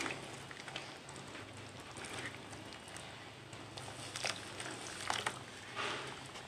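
Hands crumbling a dry chunk of white cement powder into a bowl of wet cement slurry: soft gritty crumbling and crackling with wet squishing, with a few louder crumbles about four, five and six seconds in.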